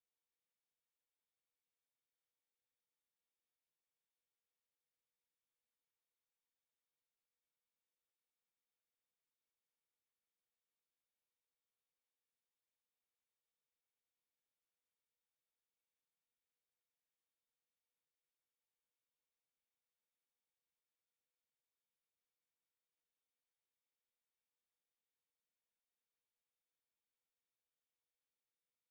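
Steady, loud pure sine test tone at 7777 Hz, held at one pitch without change, used to test speaker and headphone treble response.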